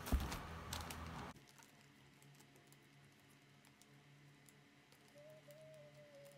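Plastic sleeve and paper envelope rustling and tapping as they are handled and cut with scissors, with a sharp knock just after the start. About a second and a half in it drops suddenly to faint, scattered small clicks.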